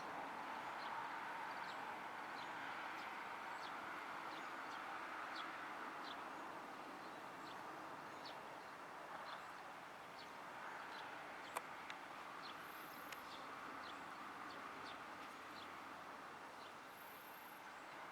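Faint, steady outdoor background noise with small birds chirping repeatedly in short high notes, and a single sharp click a little past the middle.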